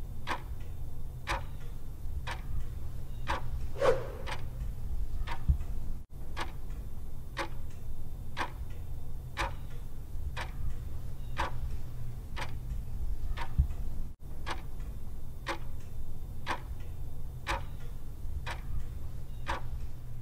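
Steady, even ticking, about two ticks a second, over a low steady rumble. It cuts out briefly twice.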